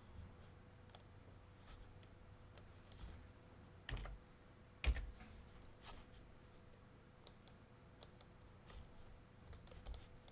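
Faint, scattered clicks of a computer mouse and keyboard, with two louder knocks about four and five seconds in.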